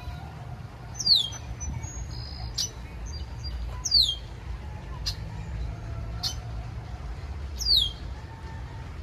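A songbird calling: three loud high whistles that slur downward, about three seconds apart, with short sharp chip notes in between, over a steady low rumble.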